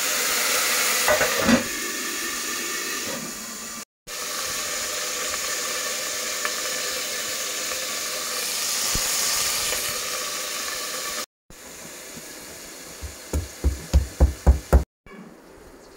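Food sizzling as it fries, a steady hiss that drops out abruptly three times, with a quick run of about seven knocks near the end.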